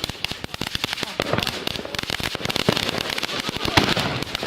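Fireworks and firecrackers going off: a dense, rapid crackle of many small pops, with a few louder bangs standing out.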